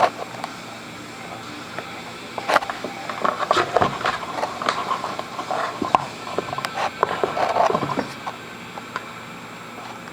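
Cat scrabbling and pawing at a cardboard box: irregular scratching, rustling and light knocks that start a couple of seconds in and go on for about five seconds. A single short knock right at the start.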